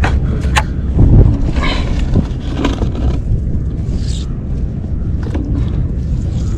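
Wind buffeting the microphone in a steady low rumble, with a couple of sharp clicks near the start.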